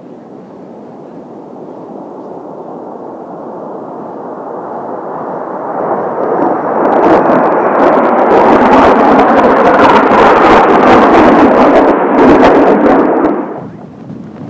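Jet noise from Blue Impulse Kawasaki T-4 trainers, twin-turbofan jets, passing overhead: it builds steadily for several seconds, stays loud and rough with crackle for about six seconds, then drops off sharply near the end.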